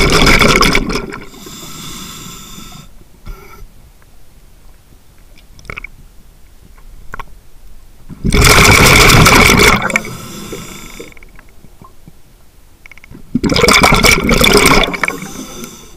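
Scuba diver's own regulator heard underwater: three loud bursts of exhaled bubbles, one ending about a second in, one about eight seconds in and one about thirteen seconds in, with quieter hissing and faint clicks between breaths.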